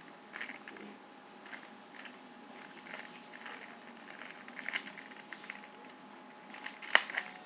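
Plastic Rubik's cube being turned by hand: short clacking bursts as the layers are twisted, spaced unevenly, with the sharpest, loudest clack near the end.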